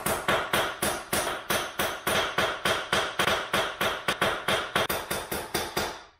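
Hammer striking metal in a steady run of about four blows a second, straightening the bent steel rod from a ride-on mower gearbox. The blows stop just before the end.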